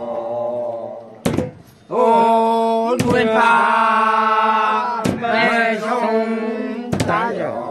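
Group of Nocte men chanting a traditional chant together in long held notes. A short break about a second and a half in is marked by a sharp click, and another click comes near the end.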